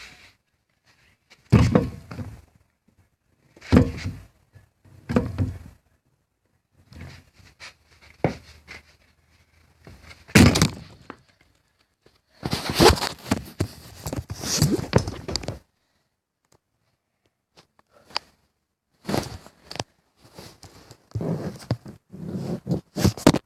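A series of irregular thuds and knocks in short bursts, with brief quiet gaps between them.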